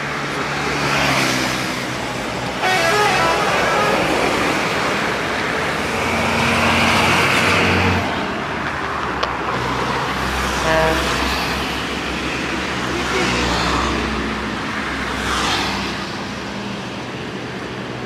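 A bus's ship-style air horn (klakson kapal) blowing a long, loud blast from about two and a half seconds in, cutting off at about eight seconds. The bus's engine and road noise then swell as it passes, over steady highway traffic.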